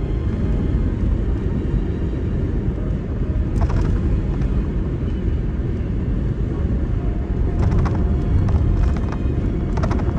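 Car driving along a city road: steady low road and tyre rumble, with a few brief clicks about a third of the way in and near the end.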